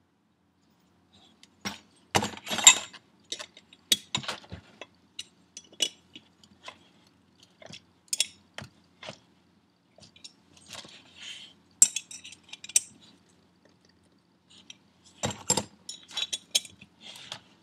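Small ratchet wrench and metal turbocharger parts clicking and clinking irregularly as bolts are worked and the housing is handled on the bench. The louder clusters come about two seconds in and near the end.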